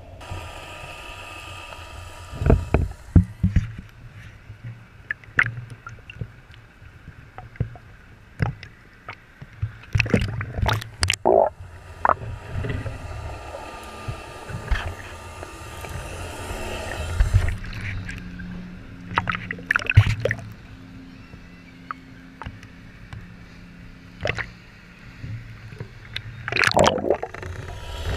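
Muffled underwater sound picked up through a GoPro's waterproof housing: water gurgling and rushing against the camera as it moves, with irregular knocks and bumps, and a low steady hum in the middle stretch.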